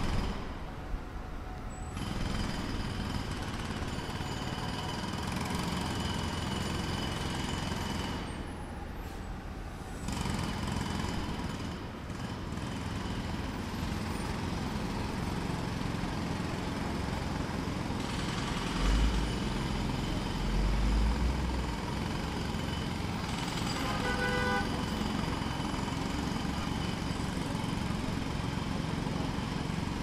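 Distant jackhammer hammering steadily amid street traffic noise, with two brief lulls in the first ten seconds. A deep rumble swells around two-thirds of the way through, and a vehicle horn sounds briefly soon after.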